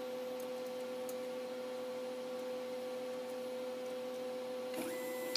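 Steady electrical hum from the Emco Compact 5 CNC lathe's stepper motor drives, holding the auto tool-changer turret still. Near the end, the turret's stepper motor starts turning again with a higher whine.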